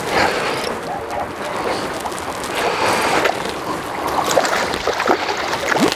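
A hooked bass splashing and thrashing at the water's surface as it is reeled toward the boat, with choppy water sloshing.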